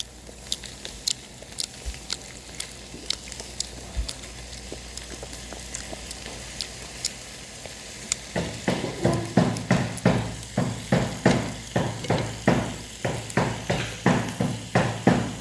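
Pork belly sizzling in the pan with a steady hiss and scattered pops of spitting fat. From about eight seconds in, loud rhythmic chewing sounds close to the microphone join in, about three chews a second.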